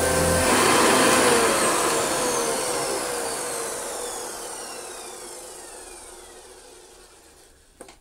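Hoover Senior 612 upright vacuum cleaner switched off about half a second in. Its motor then makes a long, slow wind-down: a whine falling steadily in pitch and fading away over about seven seconds.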